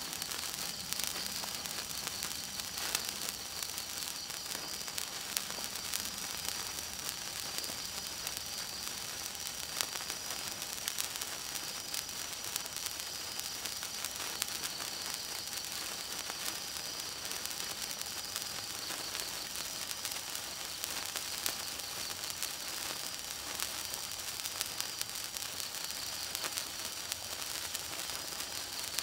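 A 36-inch gold wire sparkler burning: a steady hiss dotted with many small, sharp crackles as it throws sparks.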